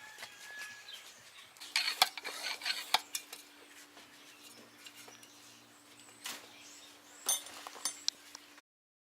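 Scattered metallic clinks and knocks from tools and bicycle parts being handled, with a faint steady hum under them. The sound cuts off abruptly just before the end.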